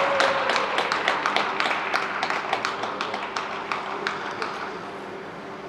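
Scattered applause from a sparse audience, with separate hand claps audible, thinning out and fading over the few seconds.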